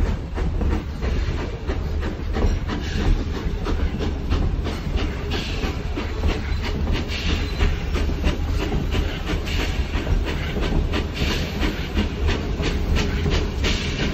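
Train rolling along on rails: wheels click repeatedly over rail joints above a steady low rumble.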